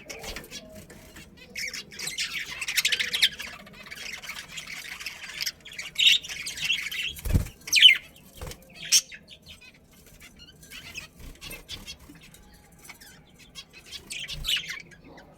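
Budgerigars chirping and squawking in short, sharp calls, with a burst of rapid chatter early on. A single dull knock about halfway through.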